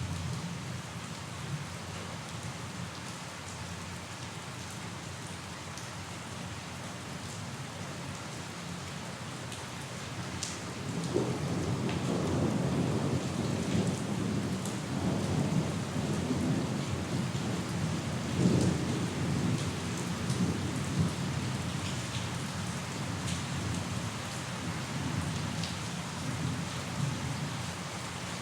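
Steady rain falling, with a long roll of thunder that builds about a third of the way in and rumbles on for roughly ten seconds before fading back into the rain.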